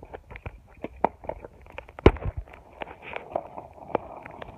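Crackling and irregular popping clicks from a rain-soaked phone microphone, with water in the microphone distorting the audio. A single loud knock about two seconds in.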